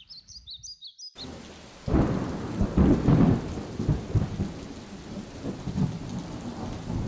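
Rain falling on a puddle, with thunder rumbling. The thunder comes in about two seconds in and is loudest over the next second and a half.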